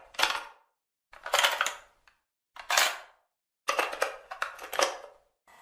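Plastic clicks and clacks from handling a cassette tape and cassette player, in four separate bursts, the last a quick run of several sharp clicks.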